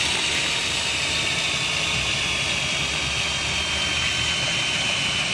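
Cordless drill running steadily, spinning a drain-cleaning flex shaft inside its sheath down a terracotta sewer pipe: a continuous whir with a faint high whine. The drill's battery is tired, which may be why the shaft is not spinning as fast as usual.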